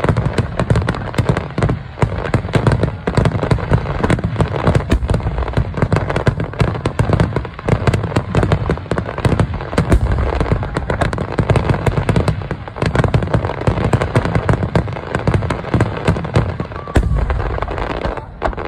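Aerial fireworks in a dense barrage: shell bursts booming and crackling one over another with no pause, cutting off suddenly near the end.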